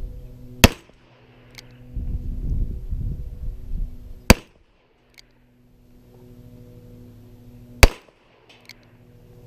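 Revolver fired three times, one shot about every three and a half seconds, each shot sharp and very loud. A faint click follows about a second after each shot.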